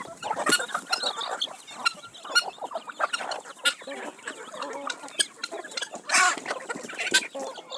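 A flock of chickens clucking and calling, with many short sharp clicks among the calls and one louder call about six seconds in.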